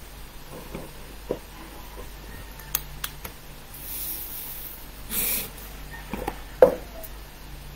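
Faint steady hum with a few light clicks and knocks of hands moving on a desk, and two brief hissy noises around the middle.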